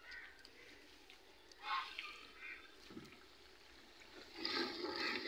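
A few faint knocks and handling sounds, then from about four seconds in a wooden spoon stirring a thick, wet masala simmering in a steel pot, with a sloshing sizzle.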